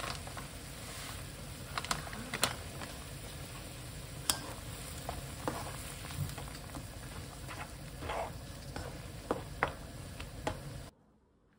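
Food sizzling in a frying pan with a steady hiss, and a utensil clicking and tapping against the pan now and then. The sound cuts off suddenly near the end.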